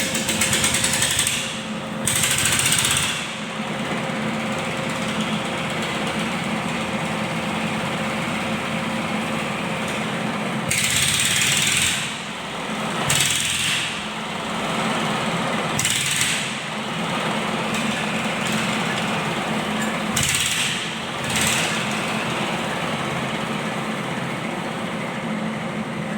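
Kubota D905 three-cylinder diesel engine running with a rattling knock and a steady hum. Louder, hissier surges come about seven times, in the engine that starts hard and has blowby.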